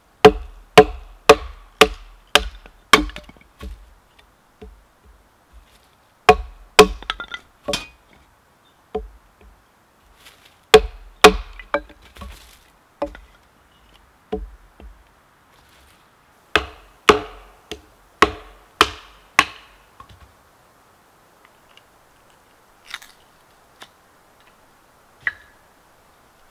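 Firewood being chopped and split: runs of sharp chops, about two a second, with short pauses between the runs.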